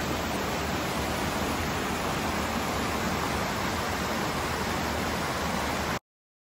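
Shallow rocky stream rushing over small rapids: a steady rush of water that cuts off suddenly near the end.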